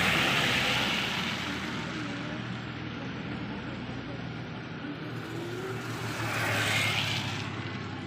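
A white van's tyres hissing through water on a wet asphalt road as it drives past, fading over a couple of seconds. The tyre hiss swells again about six to seven seconds in, with a steady low hum underneath.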